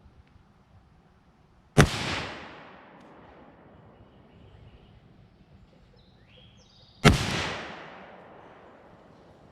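Two rifle shots about five seconds apart, each followed by an echo that dies away over a second or so: a group fired at a paper target to check the sights after a small elevation adjustment.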